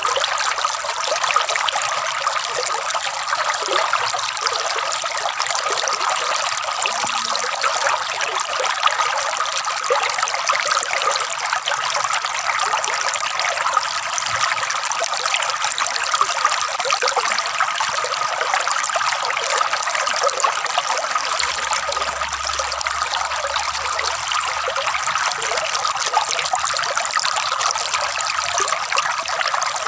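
Flowing water trickling and gurgling steadily, a thin, light splashing without deep rumble.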